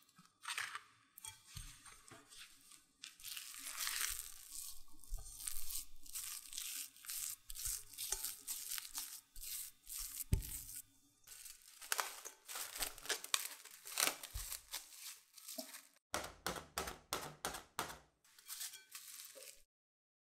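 Silicone spatula stirring and scraping persimmon purée into glutinous rice flour in a glass bowl, the mix turning into a crumbly dough. A run of soft scraping, crunching strokes that speed up to about four a second near the end.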